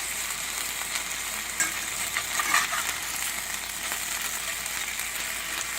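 Chicken thighs sizzling steadily in hot oil in a frying pan, just turned over to brown the second side. A few brief clicks come between about one and a half and two and a half seconds in.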